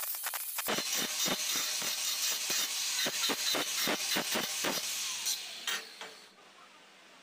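Angle grinder disc grinding the end of a steel pipe: a harsh rasping hiss that surges about three times a second as the pipe is worked against the disc. Near the end the grinder winds down and the sound falls away.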